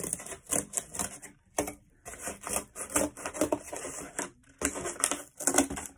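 Scissors cutting through a sheet of cardboard: a quick run of crunching snips, with a couple of brief pauses.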